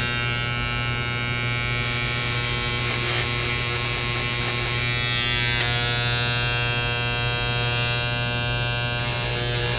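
Handheld electric engraver buzzing steadily as its tip scratches a timing mark into an engine's ignition breaker plate.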